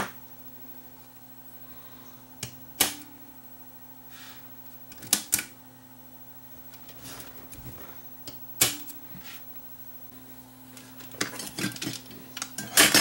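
Scattered sharp clicks and knocks of plastic and metal parts of a cassette deck being handled during reassembly, with more of them near the end, over a faint steady hum.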